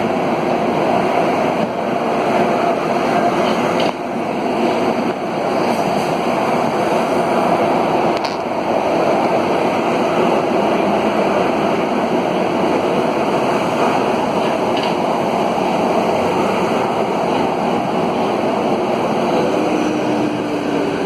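Alstom AS 02 steel-wheeled metro train running at speed, heard from inside the car: a steady rumble of wheels on rail with a faint hum in it.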